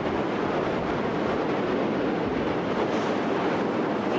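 Steady rushing storm noise, wind or heavy rain, at a constant level with no distinct impacts.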